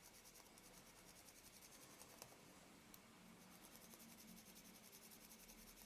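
Near silence, with faint, rapid rubbing of a cotton bud being scrubbed over camera shutter parts to clear old sticky oil, and two tiny clicks.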